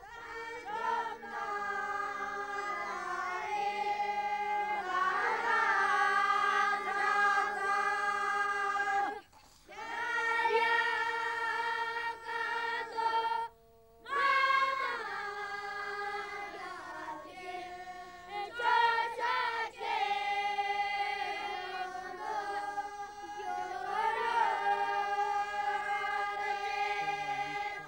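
A group of young novice Buddhist monks singing a prayer chant in unison, their children's voices holding long drawn-out notes, with two short pauses for breath about nine and fourteen seconds in.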